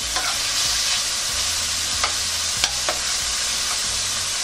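Boiled diced pork frying in hot oil in a pan, with a steady sizzle and a few sharp clicks of a utensil stirring and scraping the pan.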